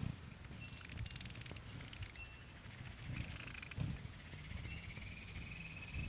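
Tropical garden ambience: a steady, high-pitched chirring of insects, with a second thin, lower tone joining about halfway through. Low, dull thumps from the phone being handled come and go underneath.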